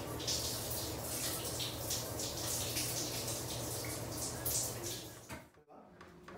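Running water splashing steadily, with irregular spattering, until it cuts off about five and a half seconds in.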